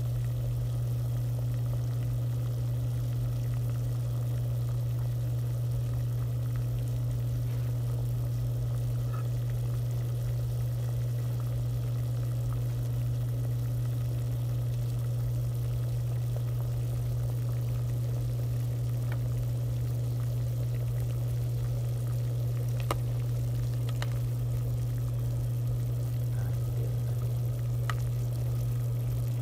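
Water at a rolling boil in a cooking pot, bubbling steadily, over a steady low hum that is the loudest thing heard. A few faint clicks near the end.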